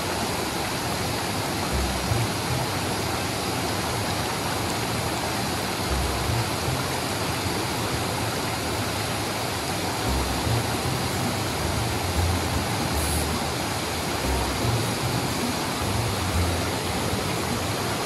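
Steady rush of river water spilling over a low weir, with irregular low rumbles underneath.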